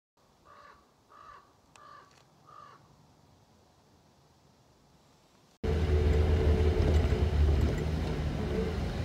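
A crow cawing faintly four times in quick succession. Then an abrupt cut to a vehicle driving a dirt track, heard from inside the cab: a steady, much louder low engine hum and road rumble.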